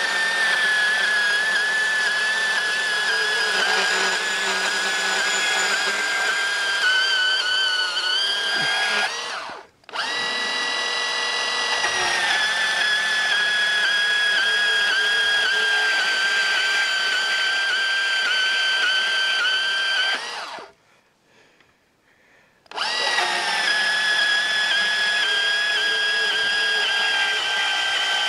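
Makita cordless portable bandsaw with an 8–10 teeth-per-inch blade running and cutting through square metal tube: a steady high whine that sags a little in pitch each time the blade takes the load. It cuts out briefly about a third of the way in, and for about two seconds a little after two-thirds of the way, then starts again.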